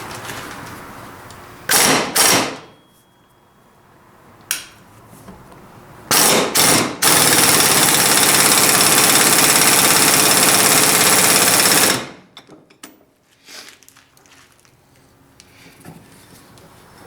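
A handheld power tool working metal with a fast rattling buzz: short bursts first, then a steady run of about five seconds that cuts off suddenly.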